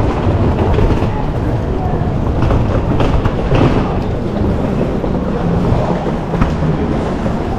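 Busy train-station concourse ambience: a steady low rumble with scattered footsteps and faint crowd voices.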